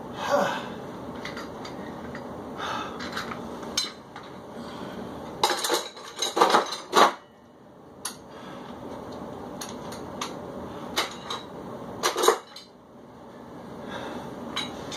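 Metal dumbbells clanking and clinking as they are set down and handled, with a cluster of sharp clanks about five to seven seconds in and another about twelve seconds in.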